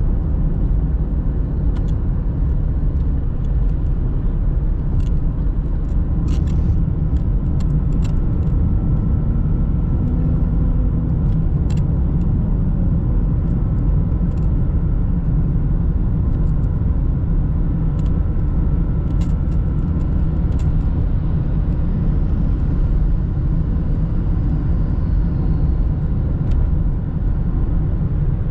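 Car driving along a city road, heard from inside the cabin: a steady low rumble of road and engine noise, with a few brief clicks scattered through it.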